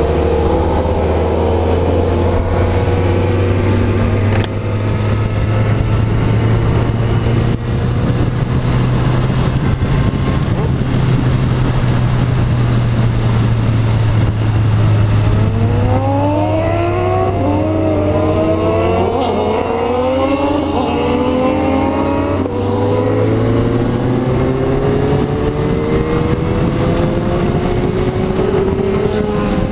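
Kawasaki Z motorcycle engine being ridden at road speed, with a noisy rush of air over it. About halfway through it accelerates through several gears, the pitch climbing and dropping back at each shift.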